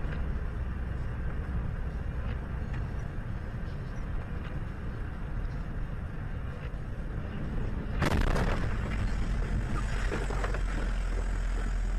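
Steady road and running noise inside a moving vehicle, with a sudden louder rush of noise about eight seconds in that stays up afterwards.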